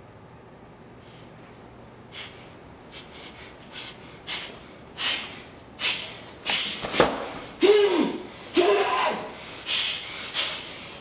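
A man gagged with tape breathing hard through his nose in sharp, panicked snorts that grow louder and quicker, with short muffled cries through the tape in the second half.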